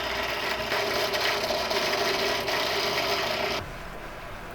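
Small power tool grinding against metal or plastic: a steady motor whine under a dense rasping noise, cutting off about three and a half seconds in.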